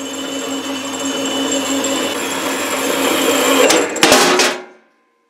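Metal-cutting bandsaw running steadily with a hum and a high whine. About four seconds in comes a quick run of sharp metallic knocks and rattles, then the sound stops abruptly.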